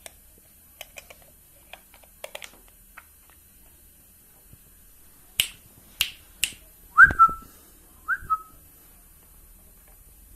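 A few light clicks, then three sharp finger snaps about half a second apart, followed by two short whistles about a second apart, each flicking up and dropping in pitch.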